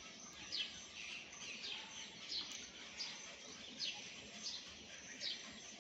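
A small bird chirping faintly in the background, short high chirps repeated about once a second over a low hiss.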